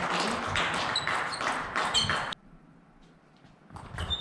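Table tennis balls clicking and pinging irregularly off bats and tables, over the hum of a sports hall. Just past halfway the sound cuts off abruptly to near silence for about a second and a half, then the hall sound returns near the end.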